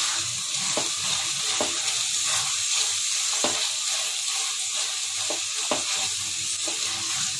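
Grated bottle-gourd halwa sizzling in ghee in a stainless steel pan as it is stirred and roasted, the last stage of cooking. The spatula scrapes and taps against the pan at irregular moments.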